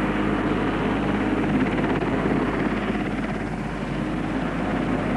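Twin-turbine Westland Wessex helicopter hovering overhead with a heavy load slung beneath: steady rotor and turbine noise.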